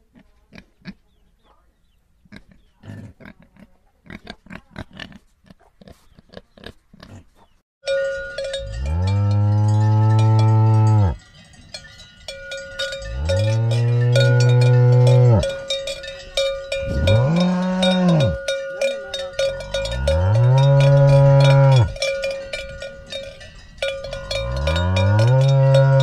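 A cow mooing five times, in long low calls that each rise and fall in pitch; the third is shorter and higher. Under the calls a cowbell rings steadily. Before the moos, for about the first eight seconds, there are only faint scattered clicks.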